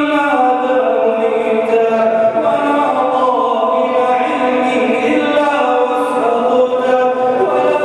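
A man's voice chanting an Arabic du'a (supplication) into a microphone, in long held melodic notes that slide slowly from one pitch to the next.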